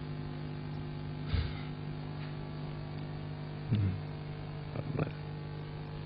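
Steady electrical mains hum on the microphone line, with three faint short sounds about one and a half, four and five seconds in.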